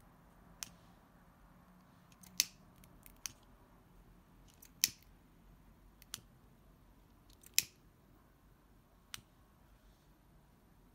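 Pocket lighter being clicked: about seven sharp clicks, spaced irregularly one to two and a half seconds apart, as the flame is lit again and again to singe the edges of an organza ribbon leaf.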